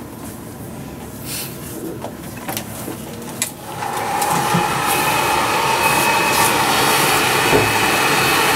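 Handheld hair dryer switched on about three and a half seconds in, then blowing steadily with a steady whine, drying and styling a man's hair. Before it, a few light handling clicks.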